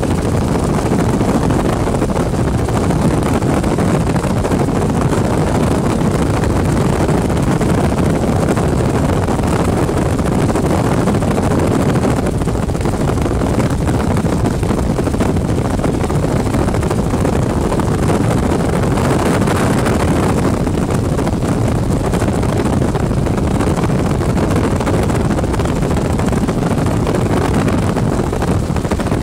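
Helicopter in flight heard from inside the cabin: a steady, loud low drone of engine and rotor with a rush of wind noise on the microphone.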